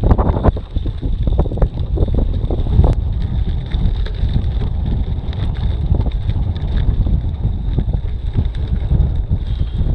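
Strong wind buffeting an action-camera microphone, a loud low rumble, with knocks and rattles from a mountain bike on a rough gravel road, thickest in the first three seconds.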